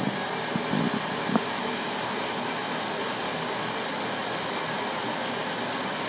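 Laser engraver running mid-engraving: a steady whir of its fans and moving laser head as it engraves black marble. A few soft knocks come about a second in.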